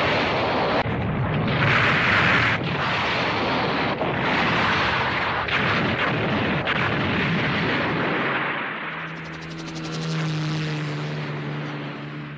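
Cartoon explosion sound effects cut one after another: a dense, rushing blast roar that changes abruptly several times. From about nine seconds the roar fades and a low steady hum with overtones comes in under it.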